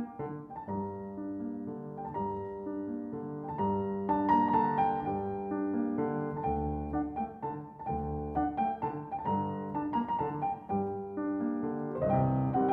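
Background music led by piano, gentle notes rising and falling, growing fuller and louder near the end.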